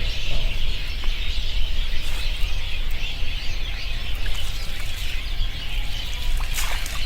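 Outdoor wildlife ambience: a dense, steady high-pitched chorus of calls over a constant low rumble, with a few sharp clicks near the end.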